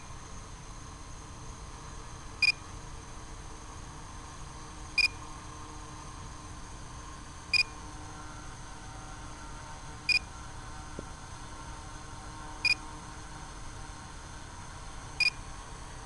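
Short electronic beep repeating evenly about every two and a half seconds, six times, over a steady hiss.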